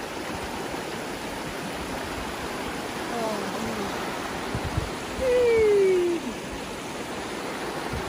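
River water flowing steadily in the shallows. About five seconds in, a voice calls out once with a falling pitch, the loudest moment.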